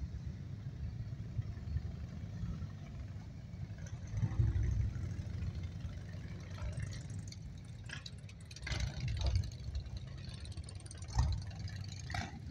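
Motorcycles riding slowly past in a line, a steady low engine rumble that swells three times as groups of bikes go by, with car engines following near the end.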